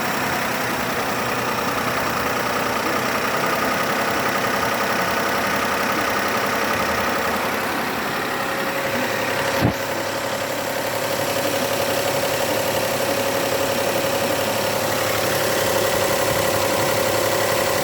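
Car engine idling steadily at a constant level, the hydraulic lifters quiet and the valve train running evenly with no knock. A steady whine comes in after about eight seconds, and there is a single sharp click about ten seconds in.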